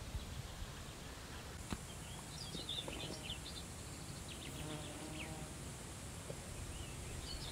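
Outdoor ambience: small birds chirping in quick clusters over a low, uneven rumble, with a single sharp click about two seconds in.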